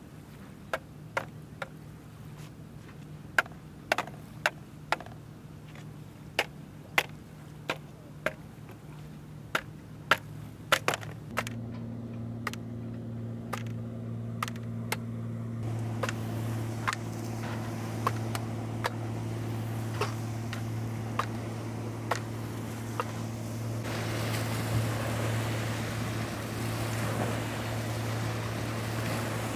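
Large knife chopping bamboo poles: sharp, irregular strikes about one a second over a steady low drone. Near the end, waves wash onto the sand.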